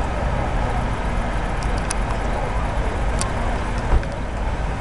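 Steady outdoor rumble of car traffic at a roadside overlook, with faint voices, two light clicks and a brief thump about four seconds in.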